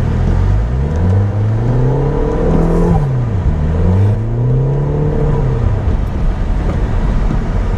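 2014 Audi TTS's tuned single-turbo four-cylinder engine heard from inside the car, pulling up through the revs, dropping about three seconds in, climbing again and then easing off near the end, over a steady rumble of road and tyre noise.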